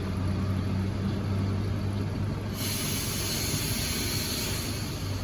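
A vehicle engine running with a low steady hum; about two and a half seconds in, the hum fades and a loud steady hiss starts suddenly and carries on.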